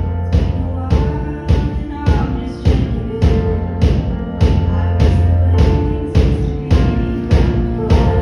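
Band music with a steady drum beat of about two hits a second over held bass notes.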